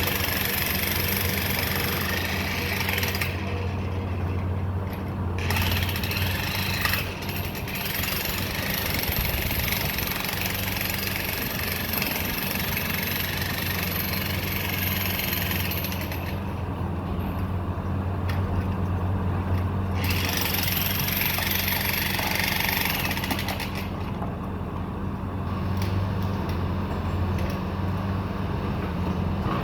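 Excavator's diesel engine running steadily under load, with a high hissing noise that comes and goes in stretches of a few seconds as the machine works.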